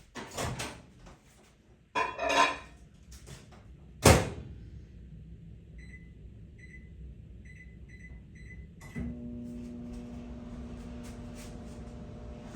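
Microwave oven being loaded and started: a rattle, then a loud clack as the door shuts about four seconds in. About six short keypad beeps follow as 50% power and 30 seconds are set, and from about nine seconds the microwave runs with a steady hum.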